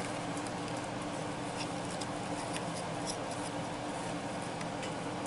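Faint rustling and small clicks of cloth and plastic parts of a Santa animatronic being handled, over a steady hum.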